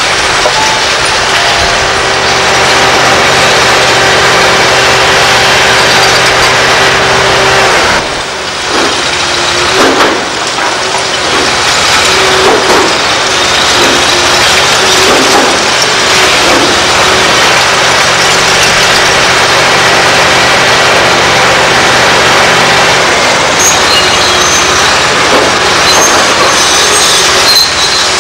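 Liebherr R964 demolition excavator's diesel engine running hard under load, with concrete and rubble crunching and crashing down as its demolition tool tears into the building. A brief dip in the noise about eight seconds in, then a sharp crack a couple of seconds later.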